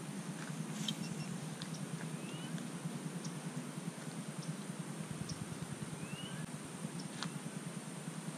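Quiet lakeside ambience with a steady low hum, a few short rising bird chirps and scattered faint clicks from the angler's spinning rod and reel as he casts and retrieves.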